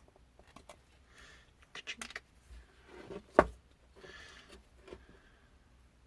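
Small clicks and taps of tools and parts being handled at a soldering bench, with a cluster of clicks about two seconds in and one sharp knock, the loudest sound, about three and a half seconds in.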